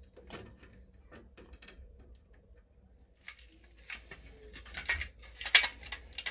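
Handling noise: faint scattered clicks and taps, then from about halfway louder irregular rustling and scraping bursts.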